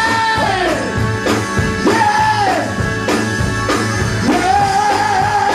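Live gospel band playing, with drums and bass under long held notes that slide down at the end of each phrase.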